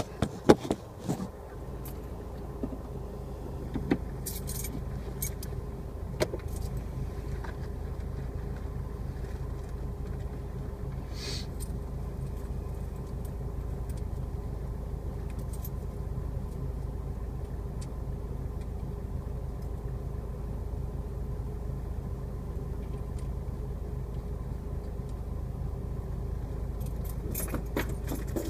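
A car running with a steady low drone, with several sharp clicks and jingling rattles in the first couple of seconds and again near the end.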